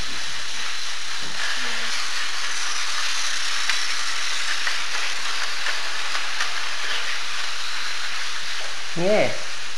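Tomy toy trains running on plastic track: a steady, even whirring hiss of their small motors and wheels. A short voice sounds near the end.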